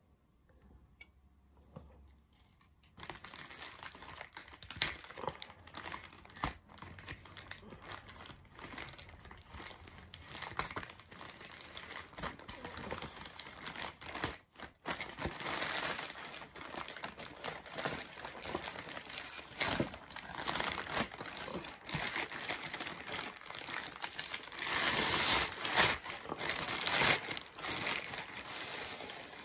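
Plastic mailer bag crinkling and rustling as it is cut open with scissors and handled, starting about three seconds in and loudest near the end.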